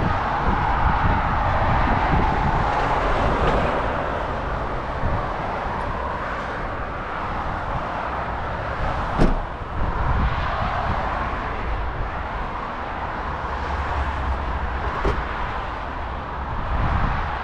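Outdoor traffic noise: a steady hiss and rumble of vehicles passing, swelling and fading at several points, with a single sharp click about nine seconds in.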